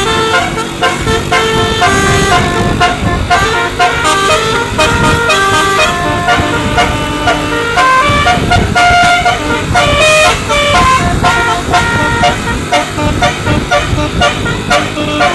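Basuri telolet musical bus horn playing a melody as a string of held notes stepping up and down, over a low rumble from the bus.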